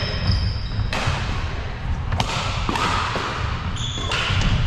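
Badminton rally: rackets strike the shuttlecock with sharp cracks several times, spaced about a second apart, ringing in a large hall. Short high squeaks of shoes on the wooden court floor and thudding footsteps come in between.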